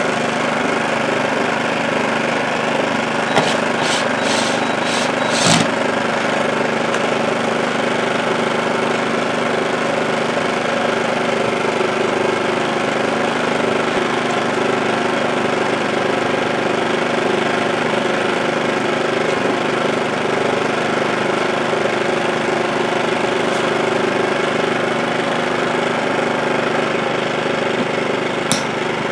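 WEN inverter generator's small gasoline engine running steadily after a high-altitude carburetor conversion kit was fitted. A few sharp clicks come about three to five seconds in, and one more near the end.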